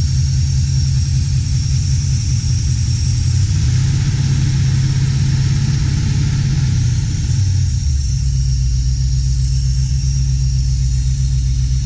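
Chevrolet 350 small-block V8 idling steadily with a deep low rumble; the idle note shifts slightly about 4 seconds in and again about 8 seconds in.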